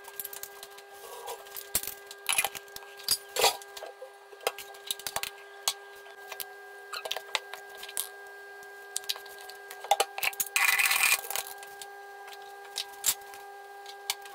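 Kitchen clatter of steel cookware and utensils: scattered clinks and knocks as pots, lids and a cup are handled at a gas stove, with a hiss lasting about a second just after ten seconds in, over a steady hum.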